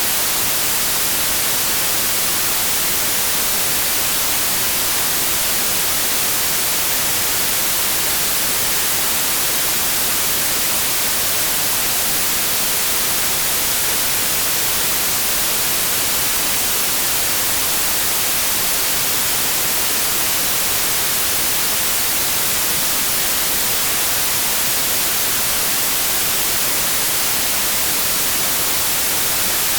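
Steady white noise: an even hiss, brightest in the high treble, with no change in level or character.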